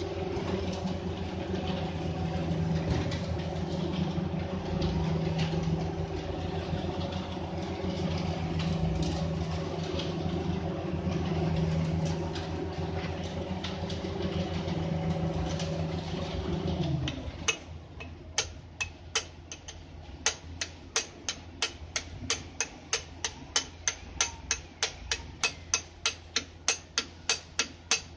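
An engine running steadily, which cuts off suddenly about seventeen seconds in; from then on, sharp metal taps at an even rate of about three a second, as from light hammer blows on the brake hardware.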